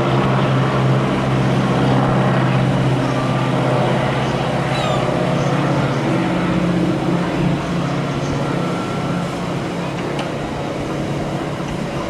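Boeing Stearman biplane's radial engine and propeller running steadily on a display pass, easing off a little in the second half.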